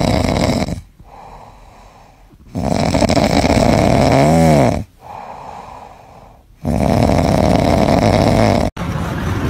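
A sleeping cat snoring loudly with its mouth open: three loud snores about two seconds long each, with quieter breaths out between them. The middle snore ends in a short wavering pitched note, and the snoring cuts off abruptly near the end.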